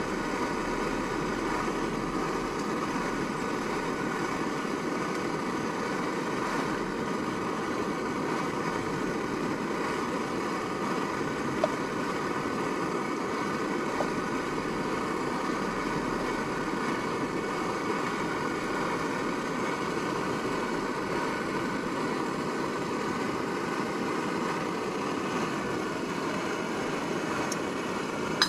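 Portable gas camping stove burner running steadily, with two light clicks of a spoon against the pot near the middle.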